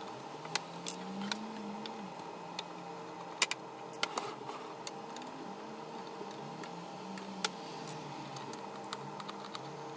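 A small screwdriver undoing the case screws of a transceiver's metal case, giving scattered light clicks and taps of metal as the screws turn and the case is handled on the desk. A faint steady hum runs underneath.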